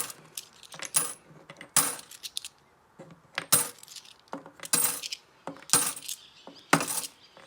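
Coins dropped a few at a time into a farm-gate honesty box: a string of sharp metallic clinks, about one a second.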